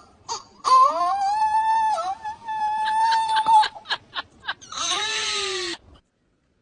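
An animal's long, drawn-out cry held at a steady pitch for about three seconds, followed by a few sharp clicks and a shorter, rougher cry that falls in pitch. The sound cuts off abruptly near the end.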